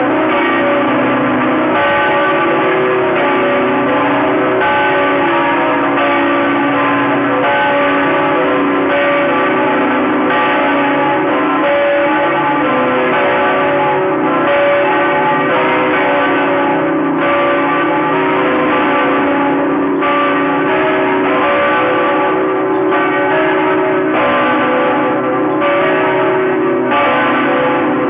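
Bells of Saigon's Notre-Dame Cathedral ringing a continuous peal: several bells struck in turn, a fresh strike every second or two, their tones overlapping and ringing on without a break.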